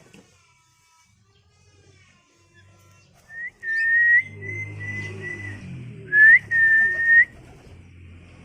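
Long, steady whistles held on one pitch and flicking upward at the end: one about three and a half seconds in and a louder one about six seconds in. Under them, domestic pigeons are cooing.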